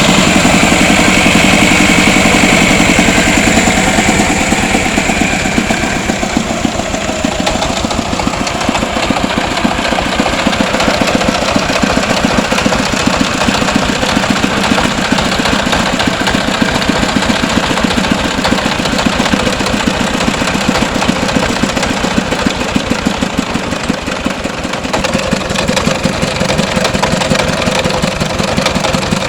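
Engine of a mobile rice-hulling machine on a three-wheeler, running steadily with a fast, even chugging beat; a higher hissing layer fades out about six seconds in.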